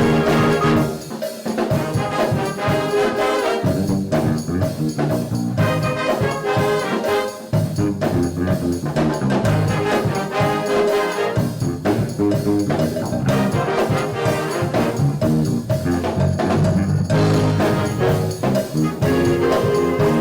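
Jazz band music led by trombones and trumpets over a drum kit, with a steady beat.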